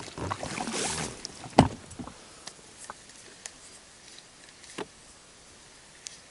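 Handling noises in a boat: a flurry of rustling and light knocks, one sharp knock about a second and a half in, then a few scattered faint clicks.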